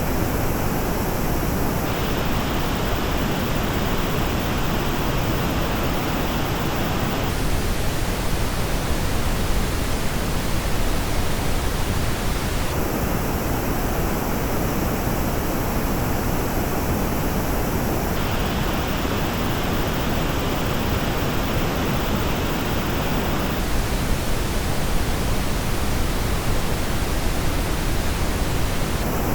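Pink noise test signal played back through the Audeze LCD-X and MM-500 headphones. The recording switches versions about every five and a half seconds, so the treble colour of the hiss changes abruptly at each switch.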